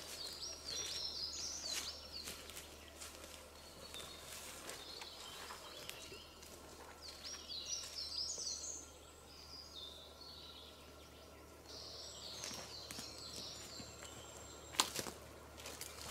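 A songbird singing in short phrases of quickly repeated high slurred notes, a phrase every few seconds, over a faint steady low hum. A sharp click stands out near the end.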